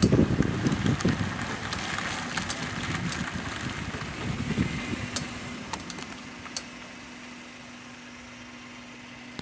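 Honda Fit GD3 heard from inside the cabin, the rumble of driving fading over about six seconds as it slows, with a few sharp clicks; then the engine idles with a steady hum. The clicking is the front-right noise that the owner suspects comes from a worn driveshaft joint.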